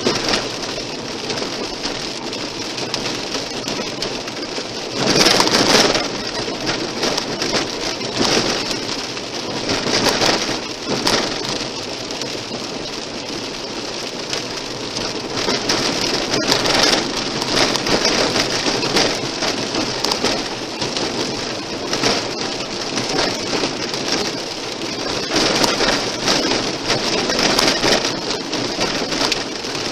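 Car tyres rolling over a gravel road, heard from inside the car: a steady noise full of sharp clicks and knocks from loose stones thrown against the underbody and wheel arches, with a louder rough stretch about five seconds in.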